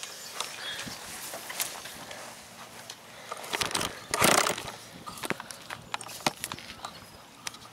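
Handling noise from a landing net holding a carp as it is carried over grass and laid on an unhooking mat: scattered knocks and rustles, with a louder rustling burst about four seconds in as the net goes down on the mat.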